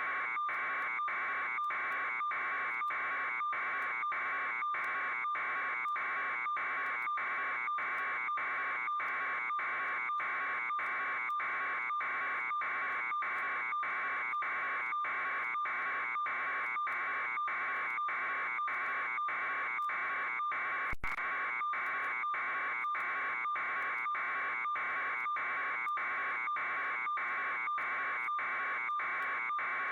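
A steady buzz, pulsing just over twice a second without change, with one sharp click about two-thirds of the way through.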